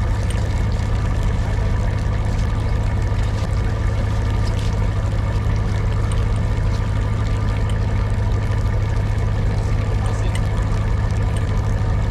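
A boat's engine running steadily: an even, unbroken low drone.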